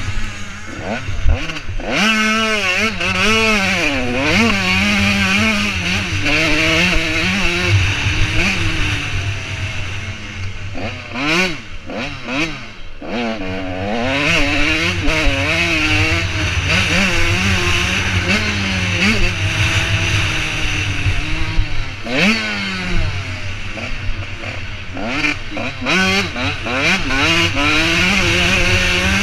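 85cc two-stroke motocross bike engine at race pace, revving up and down again and again as the throttle opens and closes, its pitch rising and falling through the gears. Twice the engine briefly drops off before pulling hard again.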